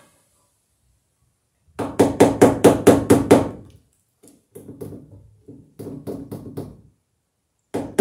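Hammer driving cable staples into a wooden ceiling joist to fasten electrical cable: a quick run of sharp blows about four or five a second, a softer run in the middle, and another hard run starting near the end.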